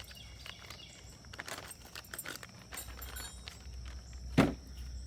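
Scattered light clicks and rustling of the leaf blower's plastic parts and tools being handled, with one sharp knock a little over four seconds in.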